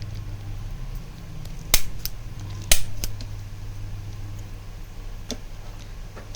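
Spring-loaded chiropractic impulse adjuster (spinal activator) firing: two sharp snaps about a second apart, each followed by a lighter click, then a fainter click later on.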